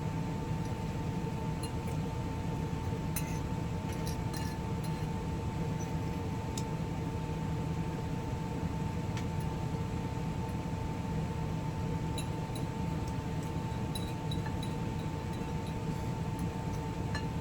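Scattered light clinks of cutlery against dishes during a meal, over a steady background hum with a constant tone.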